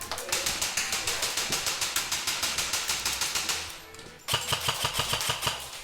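Airsoft electric gun firing on full auto in two long bursts of rapid, evenly spaced shots. The first burst lasts about three and a half seconds, and the second starts about four seconds in.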